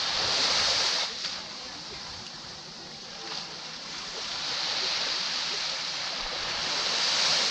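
Small sea waves breaking and washing up the sand at the water's edge. One wave surges at the start and drops off about a second in, and another builds to break near the end.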